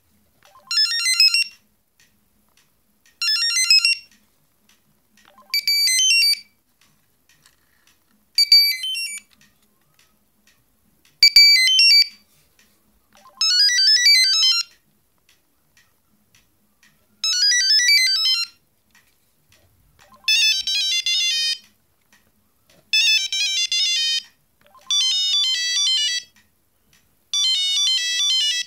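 Trium MT-140 Astral mobile phone playing short previews of its built-in ringtones one after another as each is selected. There are about a dozen electronic melody snippets of a second or so each, separated by brief pauses, and the later ones are busier.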